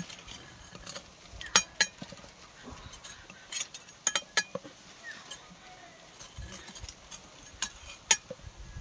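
A long steel spatula clinking and scraping against a steel pot and its mesh strainer as boiled amla are scooped out one at a time, a handful of sharp clinks spread through.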